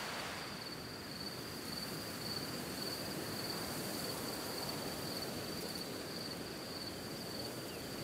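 Crickets chirping, a continuous high, finely pulsing trill over a soft outdoor hiss.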